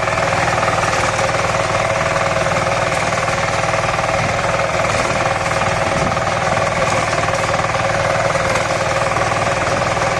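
Power paddy reaper running steadily while cutting rice, its engine humming under a fast, dense mechanical rattle.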